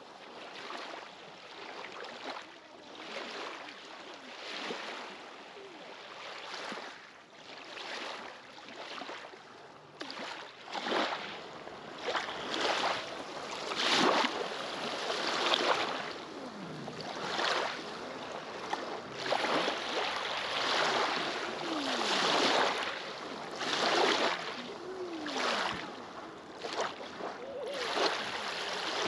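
Small lake waves lapping and washing onto a pebble shore in repeated surges every second or two, louder from about ten seconds in.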